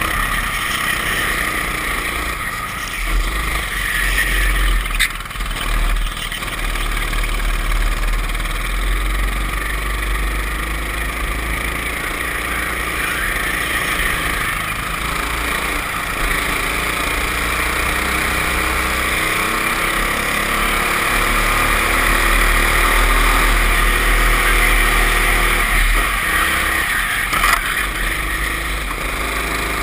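Go-kart engine running hard at racing speed, its pitch rising and falling through the corners, with steady wind rush over the onboard microphone. Two brief sharp clicks, about five seconds in and near the end.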